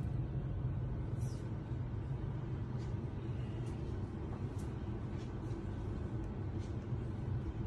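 Steady low background rumble, with a few faint, scattered clicks.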